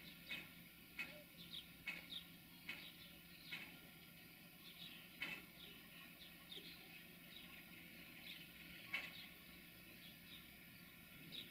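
Small birds chirping in short, irregular calls over a faint steady low hum.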